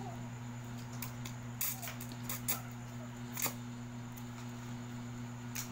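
Instant pancit canton noodles being slurped and chewed, with several sharp wet mouth clicks and smacks, the loudest about three and a half seconds in. A steady low hum runs underneath.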